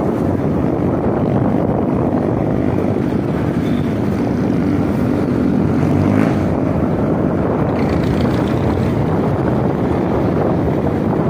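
Steady wind noise on the microphone of a moving Suzuki Smash 115 motorcycle, with its small single-cylinder four-stroke engine running evenly underneath.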